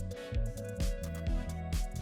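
Background music with a steady beat, about two drum hits a second over a sustained bass line.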